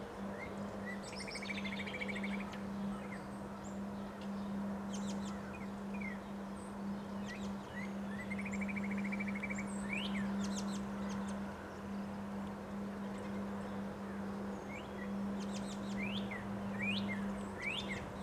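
Birds chirping and calling: short rising chirps scattered throughout, with two rapid trills, one about a second in and one about eight seconds in. Underneath runs a steady low hum.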